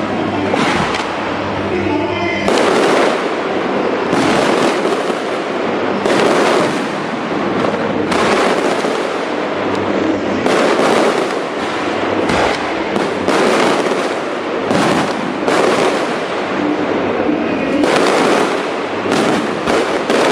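Aerial fireworks going off overhead in a continuous barrage: a dense crackle of many bangs and pops, with louder bursts every second or two.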